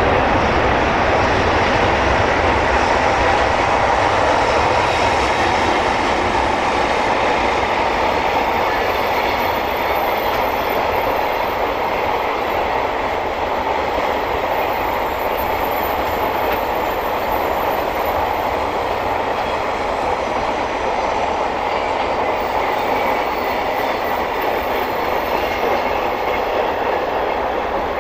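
Freight train hauled by an EH500 electric locomotive rolling past, a steady loud rumble with the clickety-clack of wagon wheels over the rail joints, easing a little toward the end.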